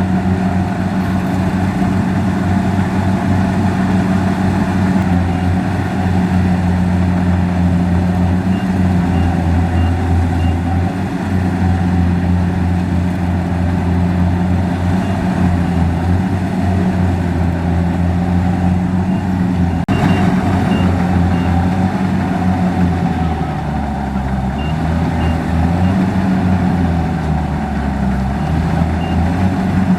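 Kubota DC-70 combine harvester's diesel engine running steadily under working load, its pitch wavering a little in the last several seconds. Faint short high beeps sound a few times.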